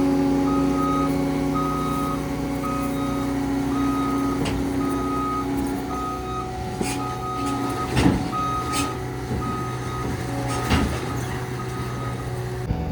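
Backup alarm beeping in a steady repeating pattern over a diesel engine running, from a compact track loader reversing. Two sharp knocks come near the end.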